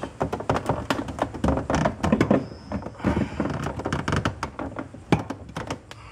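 Fourth-generation Pontiac Trans Am's plastic center console knocking and rattling as it is pushed back and lifted by hand: a quick, uneven run of thunks and taps, the sharpest about five seconds in. The console is still caught and not coming free.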